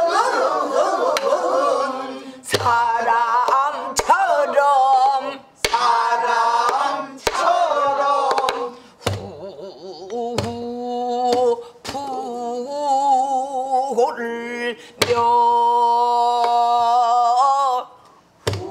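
Pansori singing by a woman in a strong, wavering voice, accompanied by her own buk barrel drum struck with a stick every second or two. Near the end she holds one long note.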